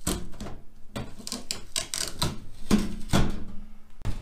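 Duct tape being peeled off the sheet-steel van roof in a run of crackling rips, with a final clack about four seconds in as the cut-out roof panel comes loose.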